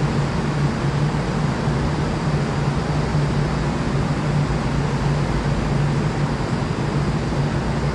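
Steady low hum over a constant rumbling noise from a Seoul Subway Line 2 train at the station, unchanging throughout.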